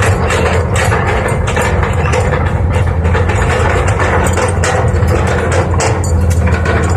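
Excavator's diesel engine running steadily, with frequent metallic clanks and clicks from the machine working.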